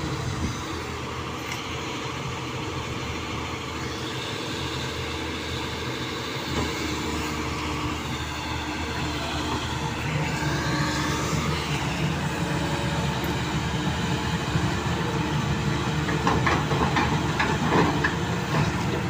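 Caterpillar crawler excavator's diesel engine running steadily, with the rattle and clank of its steel track chains working in wet sand. It grows a little louder about halfway through, and a run of sharp clanks comes near the end.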